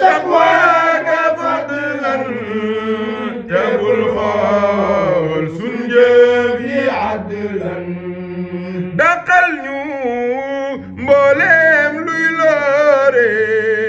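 A male voice chanting a zikr in long, drawn-out notes that bend and waver.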